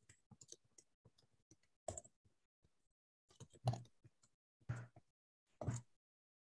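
Faint scattered clicks, then a few louder short knocks about a second apart, picked up by a computer microphone on an online call.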